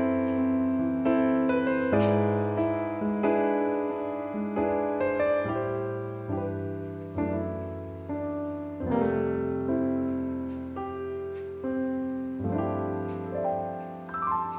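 Background music: solo piano playing a slow piece, notes and chords struck about once a second and left to ring and fade.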